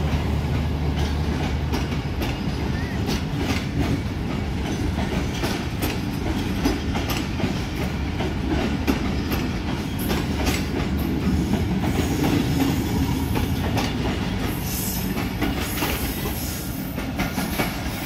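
Passenger coaches of a train rolling slowly past, their wheels clicking over the rail joints over a steady low rumble.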